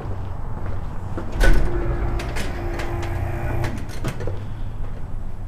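Metal-framed glass entrance door being pushed open and swinging shut: a heavy thump about a second and a half in, then a steady hum for about two seconds, with several sharp clicks near the end as it closes.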